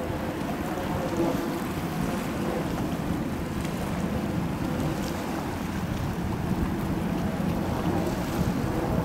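Airbus A321 airliner's jet engines on approach, a steady low rumble without breaks.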